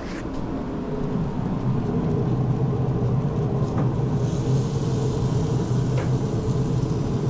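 Pit Boss pellet grill's fan running with a steady low hum that swells about a second in, with a couple of faint metal clicks.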